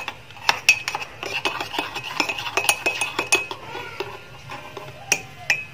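Metal spoon stirring coffee paste and milk in a ceramic mug, clinking quickly and repeatedly against the sides. The clinks thin out after about three and a half seconds, with two sharper clinks near the end.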